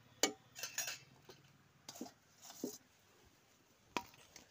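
Steel cookware and a metal spatula clinking and knocking together, about five sharp clinks spread out over a few seconds.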